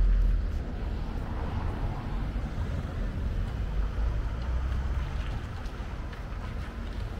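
Outdoor town street ambience: a steady low rumble with a light hiss above it.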